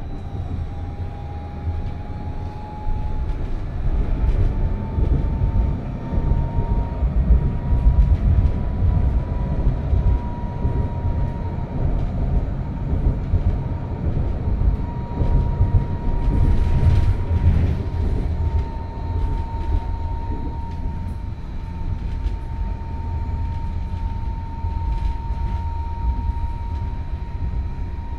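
PESA 2014N Krakowiak tram running, heard from inside: a heavy rumble of wheels on the rails under a steady high whine from the traction drive. The whine rises a little in pitch over the first several seconds and then holds.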